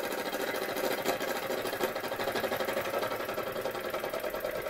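Linemar J-2734 toy live-steam engine running steadily, its piston and flywheel making a fast, even chuffing rhythm.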